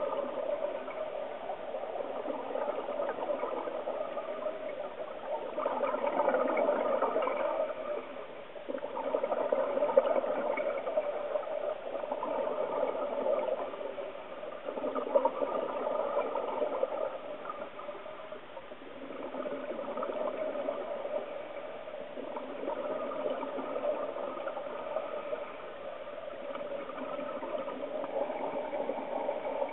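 Scuba regulator breathing heard underwater: the diver's exhaled bubbles gurgle and rush in surges every three to four seconds.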